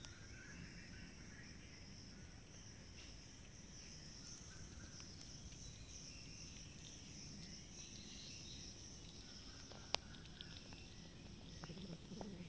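Faint outdoor ambience with insects chirring steadily, and soft scattered clicks from cats eating rice off the ground; one sharp click about ten seconds in.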